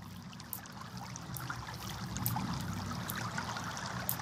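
Trickling water with scattered small drips, over a low steady hum, slowly growing louder. These are the water recordings that open an electronic composition.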